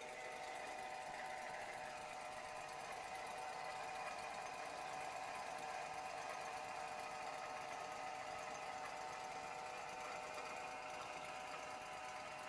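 Generator engine running steadily, an even mechanical hum with a few held tones.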